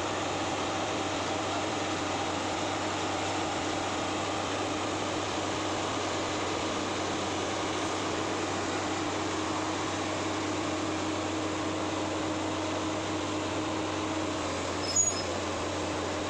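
Excavator diesel engine running steadily with a constant drone. A single short knock about fifteen seconds in.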